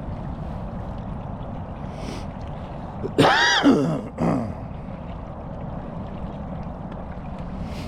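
Boat motor running steadily, with water noise against the hull. About three seconds in, a loud, close, voice-like call rises and then falls in pitch, followed by a second shorter falling one.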